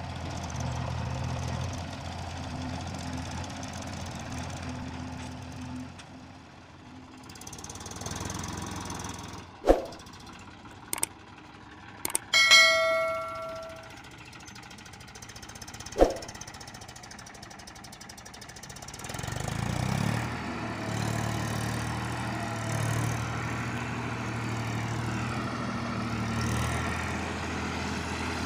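Diesel engines of a tractor and a backhoe loader running steadily. A subscribe-button sound effect cuts in about ten seconds in: sharp pops, clicks and a ringing bell chime, the loudest sound. From about twenty seconds the Eicher 333 Super Plus tractor's engine runs louder and steadier as it pulls away with a full trolley of earth.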